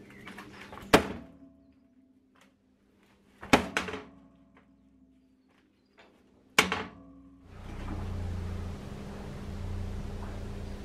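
Heavy welded-steel machine pedestal knocking down onto a 6 mm steel plate four times, each thunk leaving a short metallic ring, as its weight is used to force a bend into the plate. About three-quarters of the way through, a steady rushing noise takes over.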